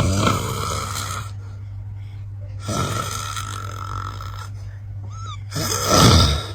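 A person snoring loudly, three heavy snores about three seconds apart with the last the loudest, over a steady low hum.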